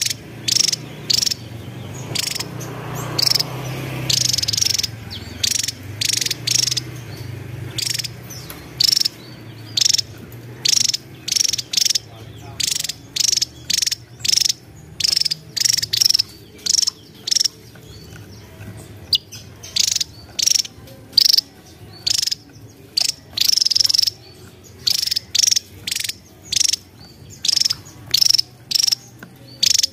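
Javan tesia calling: a long string of short, sharp, high-pitched notes, roughly one or two a second at an uneven pace.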